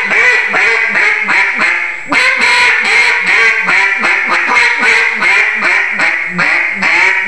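Dymondwood single-reed duck call blown in a fast string of mallard quacks, about five a second, with a brief break about two seconds in.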